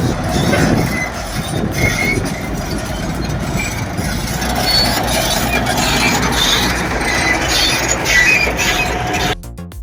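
Heavy earthmoving machine at work: diesel engine running under load, with short high metallic squeals. It cuts off abruptly near the end and music takes over.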